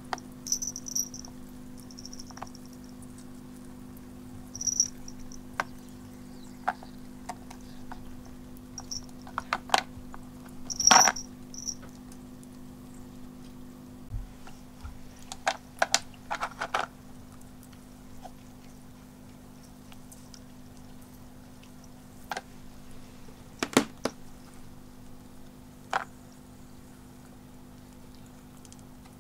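Steady hum of a pet drinking fountain's pump, with scattered sharp clicks and clinks of ice cubes in the fountain bowl. The loudest clatter comes about eleven seconds in, with another pair of clicks near twenty-four seconds.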